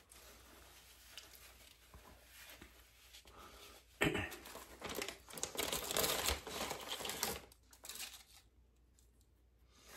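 Food packaging crinkling and rustling as it is handled: faint at first, then a loud run of crackly rustling from about four seconds in that lasts roughly three seconds before dying away.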